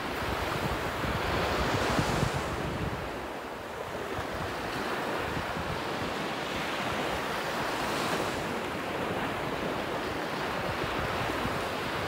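Small waves breaking and washing up the beach, with a surge of surf about two seconds in and another near eight seconds. Wind rumbles on the microphone underneath.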